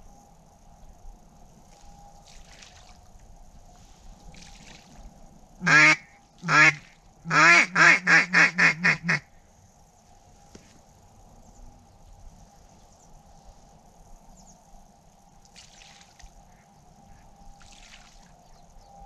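Duck call blown in a blind: two separate loud quacks, then a quick run of about seven quacks that stops suddenly.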